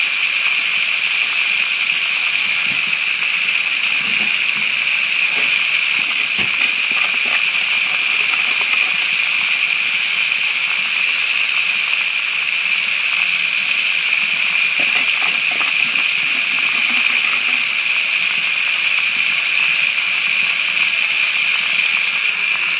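Steady rush of water flowing down a pocket sluice over its riffles into a recirculating tub, with a few faint small knocks.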